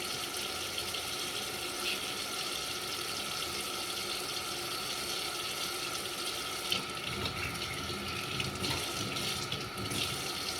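Kitchen tap running into a sink while dishes are washed by hand, with a few short clinks of dishes in the second half.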